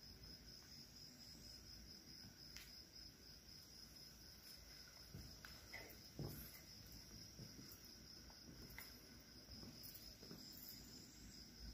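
Faint, steady pulsing chirps of crickets, with a few soft, faint clicks.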